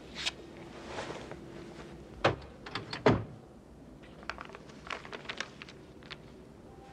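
A series of sharp clicks and knocks, with two louder thuds about two and three seconds in.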